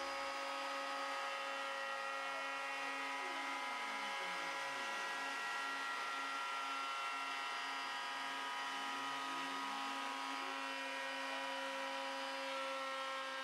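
Homemade CNC router machine running with a steady whine of several tones. Twice, a lower tone sweeps down and back up as the machine's axes move.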